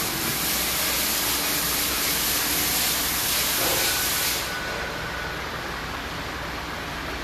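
A steady hiss that cuts off sharply about four and a half seconds in, leaving a quieter workshop background.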